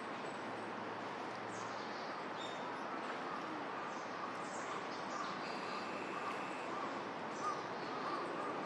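Wild birds calling over a steady background hiss: a run of short, repeated mid-pitched calls starting about three seconds in, with thin high chirps scattered among them.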